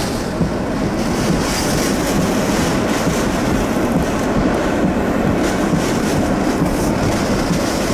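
Hurricane wind blowing hard across the microphone, a loud, dense, steady rush of noise.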